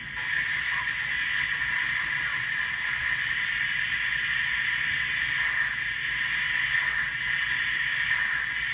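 Steady hiss of radio static from a receiver with no programme coming through, with a faint steady tone underneath.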